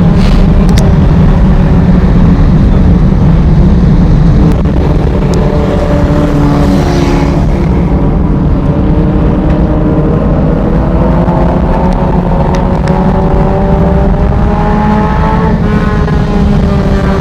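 A race car's engine running hard over a heavy low rumble, its pitch dropping about halfway through and then climbing again over several seconds as it accelerates. A few sharp knocks come through.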